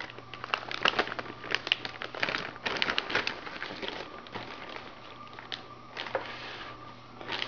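Anti-static plastic bag crinkling and crackling as a motherboard is slid out of it, dense for the first few seconds, then sparser rustles.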